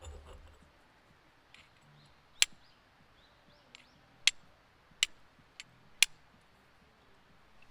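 Five sharp, short snaps spread over a few seconds, the loudest near the middle, over a quiet outdoor background with a few faint chirps between them.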